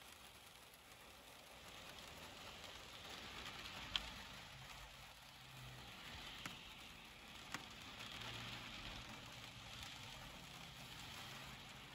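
Faint, steady rain, with the hiss of tyres and a low engine hum from vehicles passing on the wet road, swelling twice. A few sharp ticks stand out, the first the loudest.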